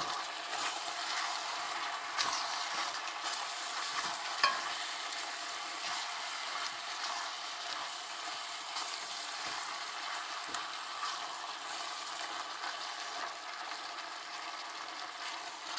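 Chicken, onion, tomato and bell pepper with freshly added garlic frying in oil in a kazan, a steady sizzle as the pot is stirred, with a couple of light clicks of the utensil against the pot about 2 and 4.5 seconds in.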